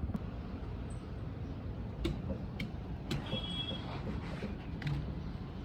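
Steady low rumble with a handful of sharp clicks and taps, each a few seconds apart, and a brief high squeak about three seconds in. This is typical of metal parts and tools being handled during engine work.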